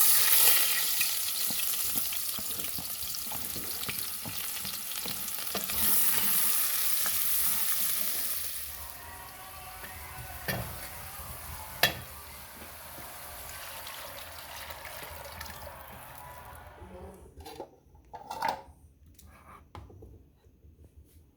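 Food sizzling in hot fat in a pan, starting suddenly and loudest for the first nine seconds, then quieter. Two sharp knocks from a utensil on the pan come in the middle, and the sizzling stops a few seconds before the end.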